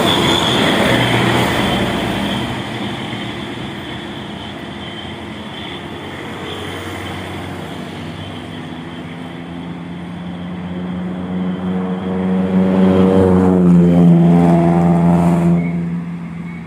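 Bus horn held as one long steady tone, growing louder over several seconds and then cutting off sharply near the end. Loud vehicle engine and road noise comes first.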